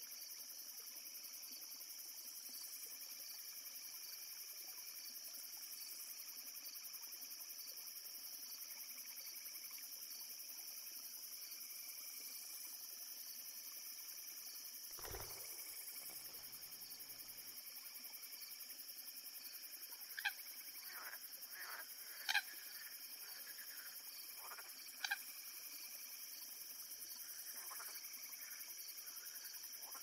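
Reed-swamp ambience: a steady high insect chorus, with a low thump about halfway through. Later comes a run of short sharp frog croaks, the three loudest about two seconds apart.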